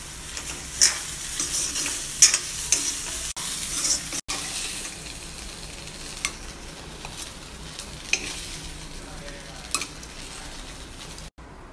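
Soya chunks frying with a steady sizzle in an iron kadai while a steel spatula stirs and scrapes them, with sharp clinks of metal on the pan every second or two.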